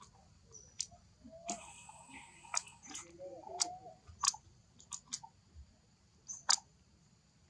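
A monkey chewing sweet lotus, making a string of sharp, irregular crunchy clicks as it bites and chews.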